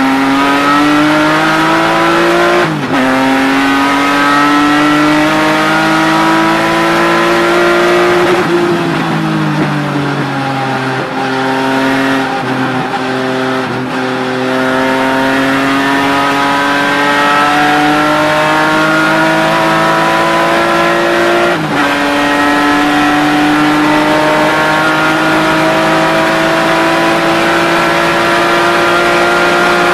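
BMW E36 M3 race car's straight-six engine heard from inside the cabin, pulling hard with its pitch climbing through the revs. It shifts up about three seconds in, and again about 22 seconds in. Around 9 seconds in the pitch falls as the car slows, then it climbs again under power.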